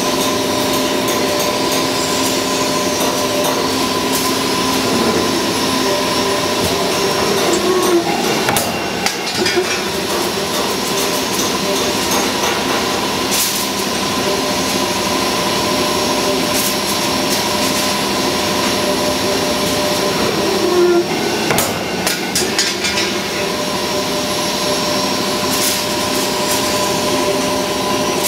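Simco CSC-5160N CNC spring coiler running, forming steel wire into a coil spring, with a steady whine made of several held tones. Bursts of metallic clanks come twice, about thirteen seconds apart.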